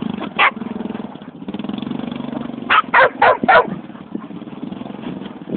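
A Honda 300 4x4 quad's single-cylinder engine running steadily as it drives, with a dog barking once near the start and four times in quick succession about halfway through.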